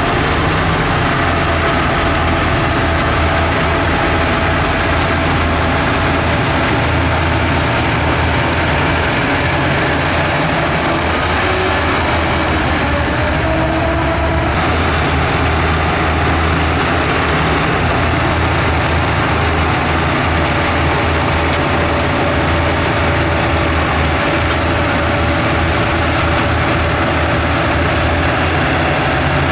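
Heavy earthmoving machine's diesel engine running steadily, with a brief wavering whine around the middle.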